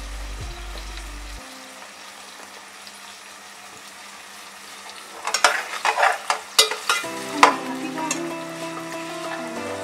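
Sliced onions sizzling in oil in an aluminium pot as they brown. From about five seconds in, a metal slotted spoon scrapes and clinks against the pot for a couple of seconds as they are stirred.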